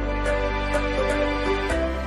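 Instrumental background music: held melody notes over sustained bass notes, with light ticks at a regular pace. The bass note changes near the end.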